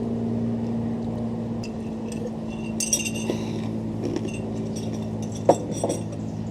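A few light clinks and clicks, the sharpest about five and a half seconds in, over a steady low hum.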